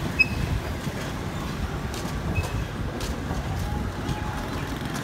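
Steady low rumble of street traffic, with one sharp knock of a butcher's knife on a wooden chopping block just after the start and a few faint clicks later.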